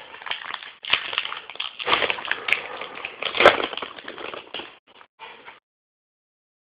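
Crinkling and rustling of a baseball card pack's wrapper being opened, with sharp crackles, dying away to a few short rustles and then silence about five and a half seconds in.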